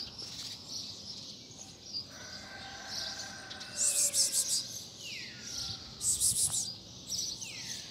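Small birds chirping, with two loud bursts of rapid high chirps about four and six seconds in and a few falling whistled call notes.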